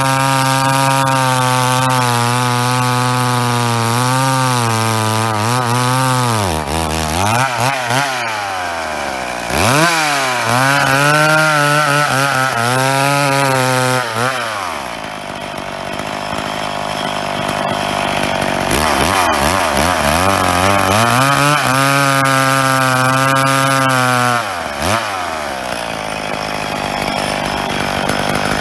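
Two-stroke chainsaw cutting through a big log at full throttle in three long stretches. Between them the engine note falls away as the throttle eases off, then climbs back into the cut. The carburettor has been "fattened up", meaning set to a richer mixture, so the saw runs slower cutting.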